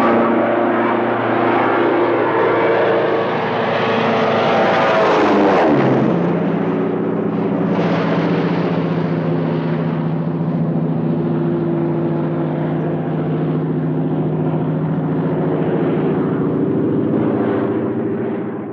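Propeller airplane engine droning steadily, with a swoop in pitch about five to six seconds in before it settles into a lower steady drone; the sound cuts off abruptly at the end.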